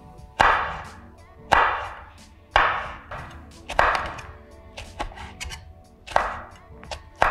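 Chef's knife slicing a red chili pepper on a wooden cutting board: sharp cuts about one a second, each with a short crisp fade, with a few lighter cuts between them.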